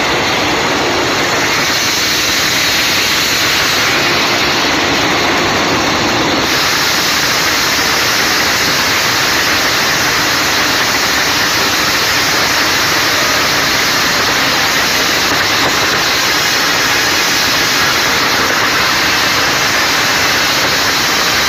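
Heavy rain and floodwater rushing across a paved road: a loud, steady hiss of water.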